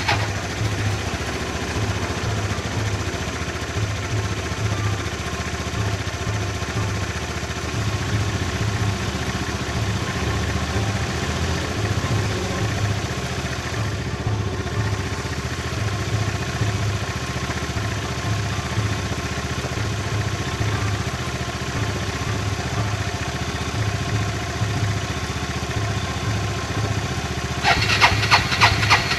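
Motor scooter engine idling steadily with a regular low pulse. About a second and a half before the end, a louder rapid clattering starts up.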